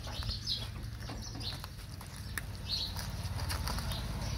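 Several puppies eating from plates and a bowl: chewing and lapping with small clicks of food and dishes. Under it runs a low steady hum, and short high chirps come a few times.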